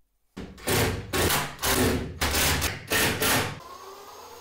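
Hand work on a wooden drawer box: a run of five loud, rough strokes about two thirds of a second apart, then a softer steady sound near the end.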